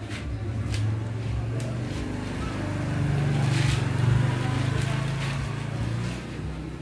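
Low, steady hum of a motor vehicle engine running, stepping up in pitch and getting louder about three seconds in. A few light clicks of the plastic rain visor being handled sound over it.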